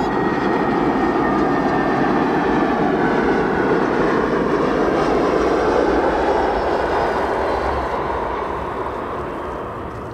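Jet airliner's engines passing by: a loud, steady rush with a whine falling in pitch, fading over the last few seconds.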